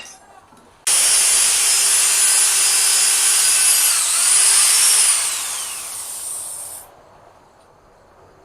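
Electric drill boring into a steel lawnmower blade for about six seconds, hard on the drill bits. Its whine dips under load, picks up again, then winds down and stops.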